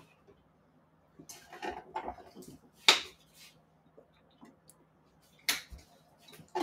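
Kitchen handling sounds: a few light clicks and knocks of a small bottle and a cabinet as vanilla is fetched, opened and poured. The sharpest click comes about three seconds in, and another about five and a half seconds in.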